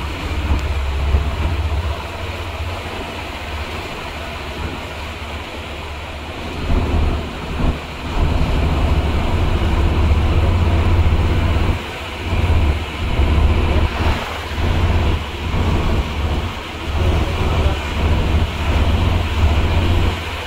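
Low rumble of a vehicle on a road, mixed with wind on the microphone, swelling and dipping irregularly.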